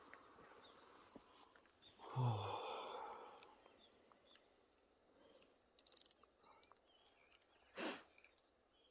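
A person sighs once, about two seconds in: a breathy exhale lasting about a second that falls in pitch. Faint outdoor ambience with a few soft ticks lies around it, and a short breathy burst comes near the end.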